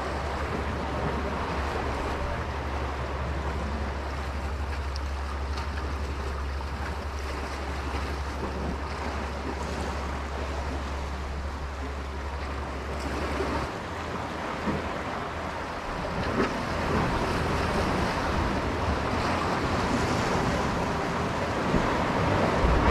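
Sea surf washing against the rocks, with wind noise on the microphone. A steady low rumble under it stops abruptly about two-thirds of the way through, and the surf grows a little louder near the end.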